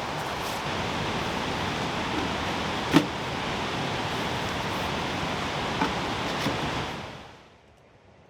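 Steady rush of falling water from a waterfall, with one sharp click about three seconds in; the rush fades away near the end.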